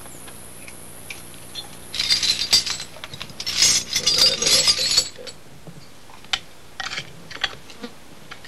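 Metal climbing hardware, carabiners, cams and pitons, clinking and jangling as it is handled and sorted, densest from about two to five seconds in, with a few shorter clinks near the end.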